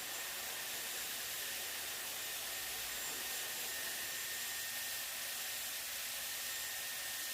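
Hair dryer blowing steadily: an even airy hiss with a faint high whine.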